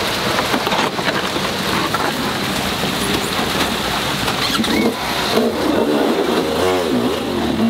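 Husqvarna enduro motorcycle engine revving in short bursts as the bike is forced up a rocky stream bed, the revs rising and falling most strongly in the second half. Rushing water runs underneath throughout.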